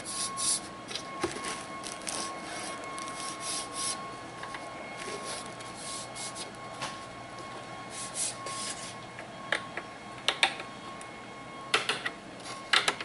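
Handling noise from a display case's black light-base panel being turned over and felt for its power switch: scattered small knocks and rustles against plastic wrap, with a few sharper clicks in the last three seconds.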